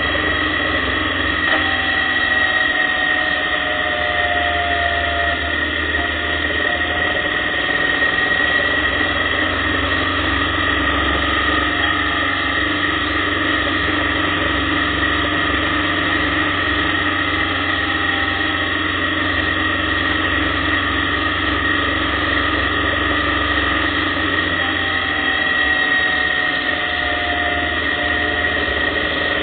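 Motorcycle engine running steadily at cruising speed, under a constant rush of wind and road noise.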